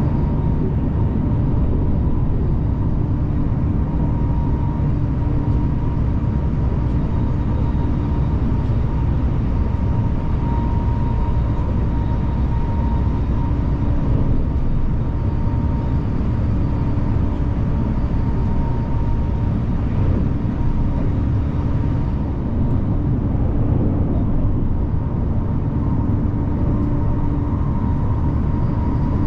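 Passenger train running at speed, heard from inside the carriage: a steady low rumble with a constant hum over it.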